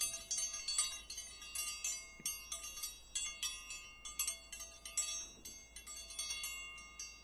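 Chimes tinkling: many light, overlapping ringing strikes at high pitch, each fading away, over a faint steady hum; the sound cuts off suddenly at the end.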